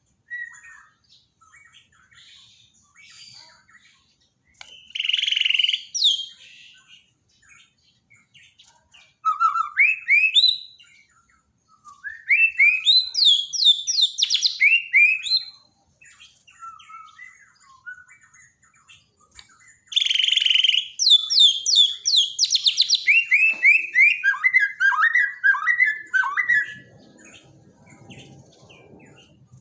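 A murai batu Borneo (white-crowned shama) singing in loud, varied phrases of quick whistled notes, rising and falling, broken by harsh rasping bursts. It is played as a masteran, a song recording used to spur a captive shama that has stopped singing. The phrases come about five seconds in, around ten, between twelve and fifteen, and as a long run from twenty to about twenty-seven seconds.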